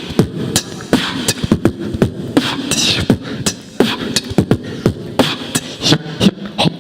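Human beatboxing: mouth-made kick-drum sounds, sharp clicks and hiss-like hi-hats in a quick, uneven rhythm, with a hissing sweep that rises and falls about three seconds in.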